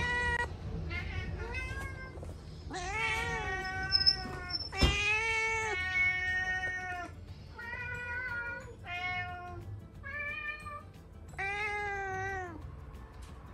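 Several house cats meowing in a commotion: about ten drawn-out meows one after another, each rising and falling in pitch. One sharp knock comes about five seconds in.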